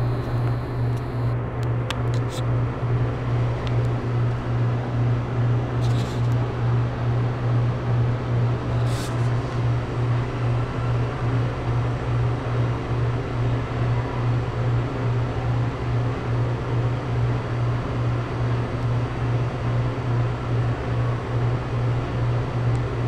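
NuTone ceiling bathroom exhaust fan running: a steady low motor hum under the rush of air through the grille, wavering slightly in a regular beat.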